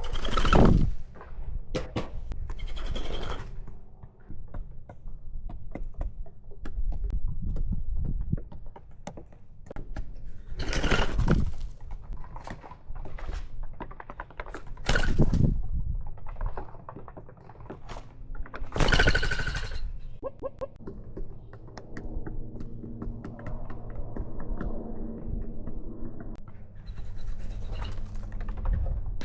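Birds feeding and scuffling close to the microphone: knocks and scrapes, with a few loud harsh bird calls, the loudest about 11, 15 and 19 seconds in.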